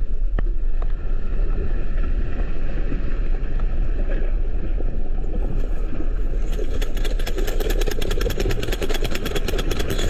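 Deep, steady rumble of an underwater earthquake as heard through an underwater camera, with the seabed shaking and throwing up sediment. A fast run of fine ticks, about eight a second, joins the rumble a little past halfway.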